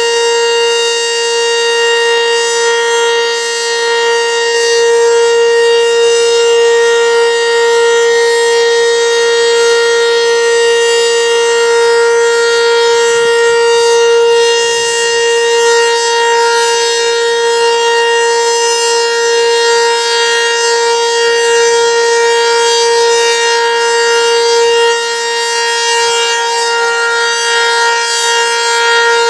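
ACA Banshee outdoor warning siren sounding during its weekly test, holding one steady pitch with gently swelling loudness.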